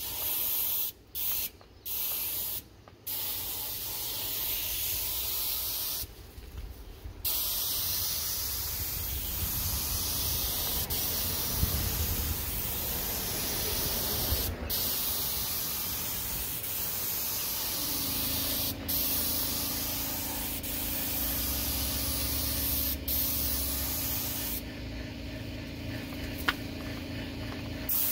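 Compressed-air paint spray gun with a gravity-feed cup hissing steadily as it sprays paint, stopping briefly several times between passes. A steady low hum comes in about two-thirds of the way through.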